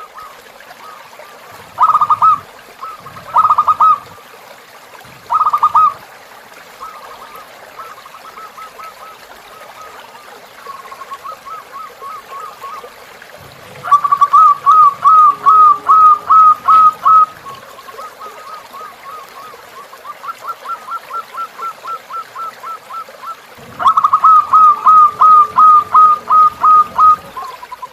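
Zebra dove (perkutut) cooing in runs of quick, hooked notes: three short loud bursts in the first few seconds, then two loud runs of about a dozen notes each, one mid-way and one near the end, with fainter runs between. Under it runs a steady rush of flowing river water.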